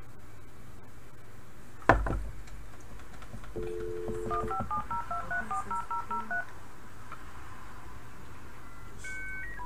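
Landline telephone: a click as the handset is lifted, a steady two-note dial tone for about a second, then a rapid string of about ten touch-tone digits being dialed, with a few short beeps near the end.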